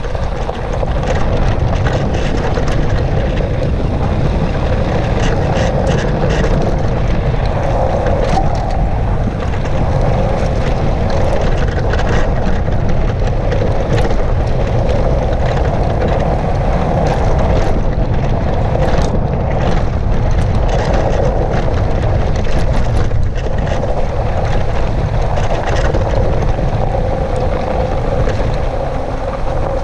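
Ride noise from a Citycoco 1000 W electric chopper scooter on a dirt track: wind buffeting the scooter-mounted microphone and the tyres rumbling over the ground, with many short clicks and rattles from bumps.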